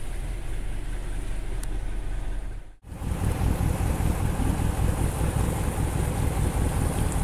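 Passenger motor launch under way: the engine runs steadily and water rushes along the hull. About three seconds in the sound cuts out for an instant and returns louder and rougher, with wind and splashing water.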